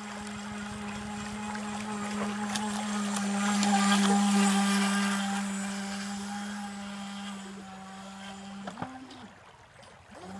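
FT012 RC speedboat's electric motor whining at a steady pitch as the boat runs across the water, growing louder to a peak about four seconds in as it passes close, then fading. Near the end the pitch jumps briefly and the whine drops away.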